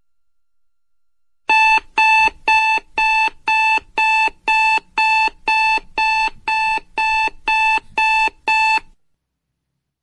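Small analog alarm clock beeping: a train of short, high, evenly spaced beeps, about two a second, that cuts off suddenly near the end.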